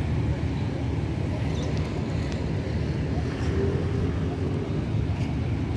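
Steady low rumble of outdoor city background noise.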